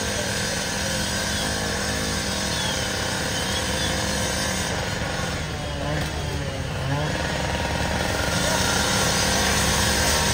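Lithium-ion battery in thermal runaway burning in a steel drum: a steady rushing noise of flame, with a low engine drone running underneath that grows a little louder near the end.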